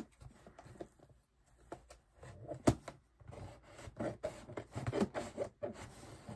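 Scissors cutting into the packing tape and cardboard of a shipping box: irregular scraping and rustling, with a sharp click a little under three seconds in.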